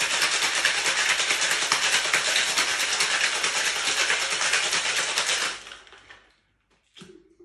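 Ice rattling in a metal cocktail shaker, shaken hard in a fast, even rhythm, stopping abruptly about five and a half seconds in. A couple of faint knocks follow near the end.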